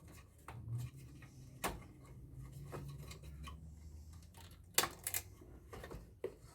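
A few sharp clicks and snaps from side cutters snipping wires and plastic clips off an aircon blower's circuit board, the loudest a quick double snap about five seconds in, over a low steady hum.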